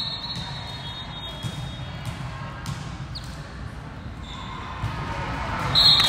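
Referee's whistle, then several sharp hits of a volleyball being played in a rally, and a second, louder whistle near the end, echoing in a gym.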